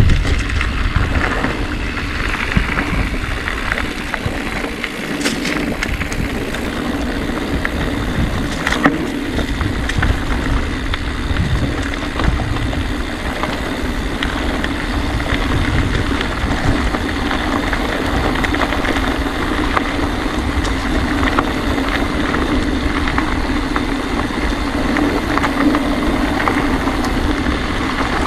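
Mountain bike rolling along a trail: tyre rumble over the ground with a steady hum and scattered rattling clicks from the bike.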